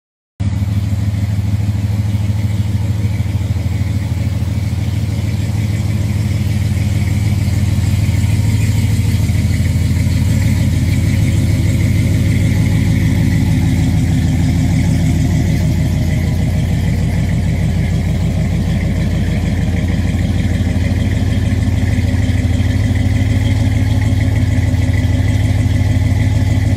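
Hellcat-swapped Dodge Ram 1500's supercharged 6.2-litre Hemi V8 idling steadily through its exhaust, a loud, deep, even engine note.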